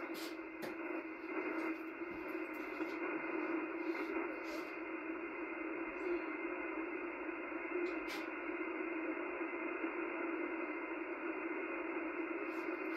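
Ham radio receiver hissing through its speaker with band noise (static), the sound held to a narrow voice passband, with a steady low tone underneath.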